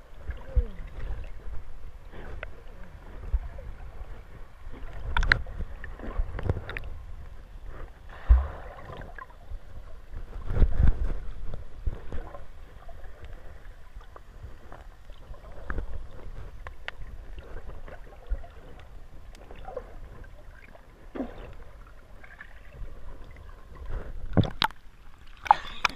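Muffled underwater sound recorded by a camera held below the surface: a low rumble of moving water with irregular thumps and knocks, the strongest about 8 and 11 seconds in.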